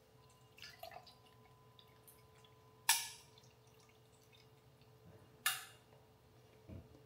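Milk poured from a carton into a stainless-steel tumbler, a faint liquid trickle, with two sharp clinks that ring briefly, about three seconds in and again about five and a half seconds in.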